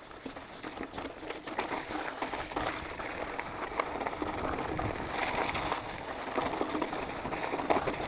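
Mountain bike tyres (Maxxis Minion 2.3) crunching and rattling over a loose, rocky dirt trail on a descent, with a dense patter of clicks and knocks from stones and the bike. It grows louder toward the end as the ground gets rougher.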